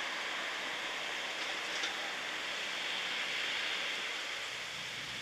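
A steady rushing hiss with no distinct events, strongest in the upper-middle range.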